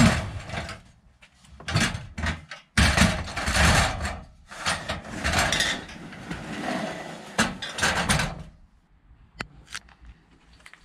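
A ladder being slid into a van's load space, scraping and knocking against the floor and fittings in two stretches, with a few sharp clicks near the end.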